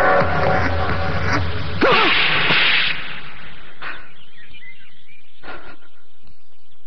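Film slap sound effect: a loud whip-like crack with a whoosh about two seconds in, then a few brief, quieter sharp sounds.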